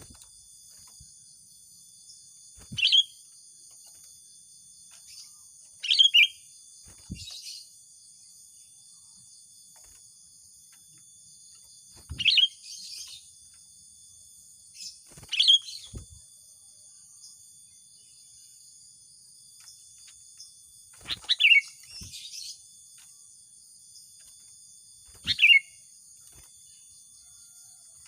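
Sooty-headed bulbul (kutilang) giving short, loud calls about every three to six seconds, each phrase dropping in pitch, over a steady high chorus of insects.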